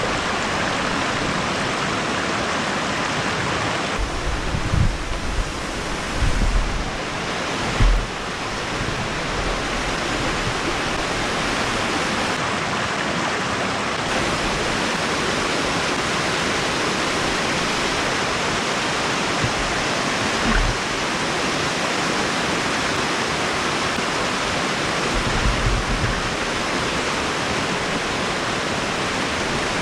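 Small woodland waterfall and stream cascading over rocks: a steady rush of water. A few brief low rumbles on the microphone come several seconds in and again near the end.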